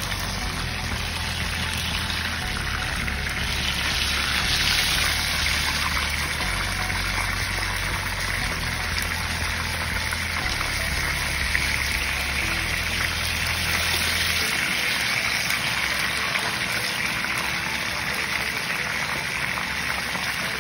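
Fish frying in hot oil in a nonstick skillet: a steady sizzle.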